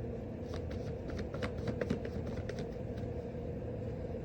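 Quick, light clicks and taps, several a second at irregular spacing, over a steady low hum.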